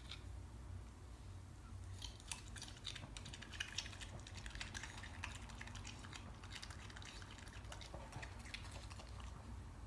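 Faint, irregular small clicks and smacks of a raccoon eating dark berries from a bowl, over a low steady hum.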